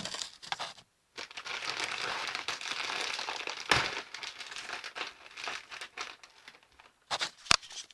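Crinkling and rustling of a bag of aspen shavings bedding being handled, with a sharp knock about midway and a few clicks near the end.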